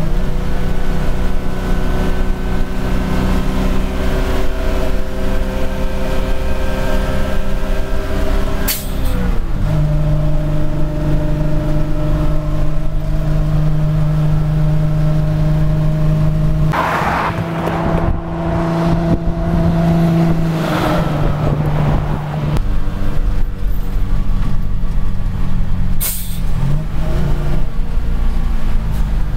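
Foden Mk 6 two-stroke diesel engine of a 1967 Foden S21 eight-wheel lorry, heard from inside the cab while driving on the road. The engine note steps to a new pitch several times as gears are changed, with a brief hissing burst just past halfway.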